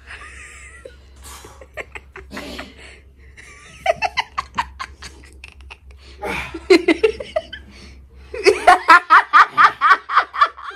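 A person laughing: a couple of short bursts, then a long fit of rapid, pulsing laughter near the end that is the loudest part.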